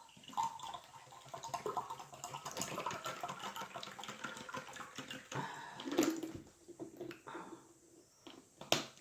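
Close-miked chewing with wet lip smacks and small mouth clicks, a person eating. There is a louder moment about six seconds in and a sharp click near the end.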